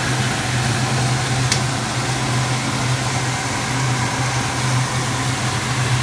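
Steady mechanical hum: a constant low drone under an even hiss, with a faint tick about a second and a half in.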